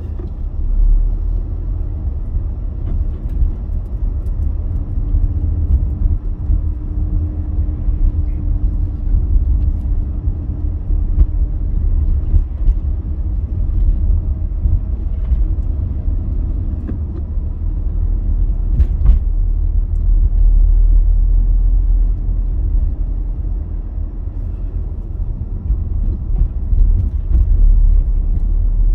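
Road noise inside a moving car: a steady low rumble of tyres and engine, with a faint hum through the middle stretch and a single sharp click about nineteen seconds in.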